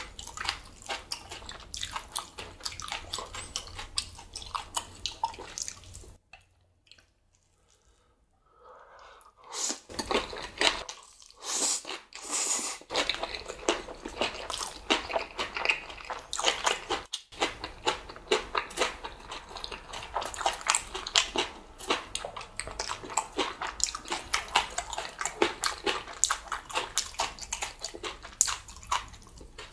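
Close-miked eating of black bean instant noodles: wet slurping, smacking and chewing in quick irregular clicks, broken by a silent pause of about three seconds some six seconds in.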